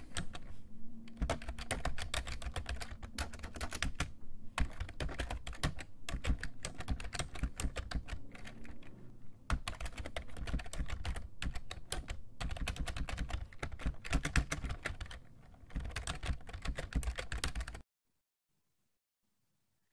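Rapid typing on a computer keyboard: a dense run of key clicks with a few short pauses, cutting off abruptly near the end.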